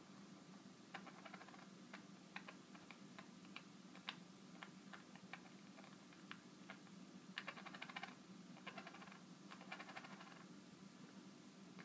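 Budgerigar making a quiet, rapid clicking rattle, a grinding "giri-giri-giri" call: scattered single clicks, then several short bursts of fast rattling from about seven seconds in. The owner wonders whether it is an imitation of some sound.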